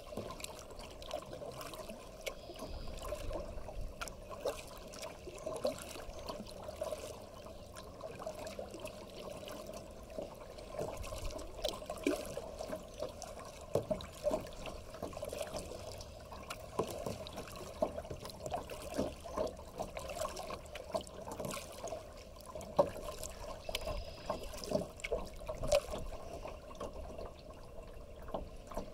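Kayak being paddled: water trickling and splashing in many small, irregular plops around the paddle and hull.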